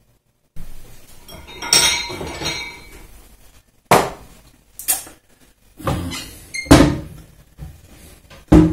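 Kitchenware being handled: a ceramic bowl set down on a plastic cutting board, with about half a dozen sharp knocks and clinks, one ringing clink about two seconds in.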